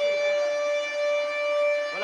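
Newly installed air raid siren sounding one long, steady wail, its pitch rising slightly and then holding level.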